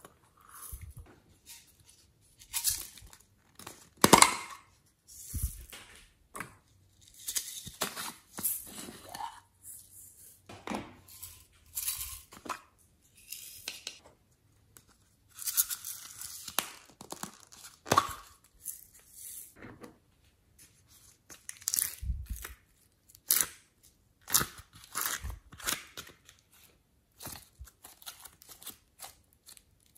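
Close-up handling sounds of slime ingredients: beads and glitter shaken out into a glass dish, and soft clay and glossy slime squeezed and pulled apart by hand. They come in irregular short bursts of crackly noise with short pauses between, and one sharp click about four seconds in.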